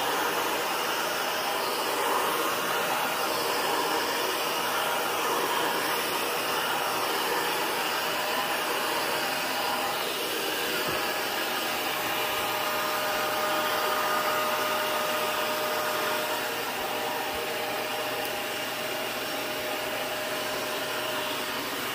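Vacuum cleaner running steadily, its dusting-brush attachment drawn over a beagle's coat to suck up loose hair. A faint steady whine joins the motor's noise about halfway through.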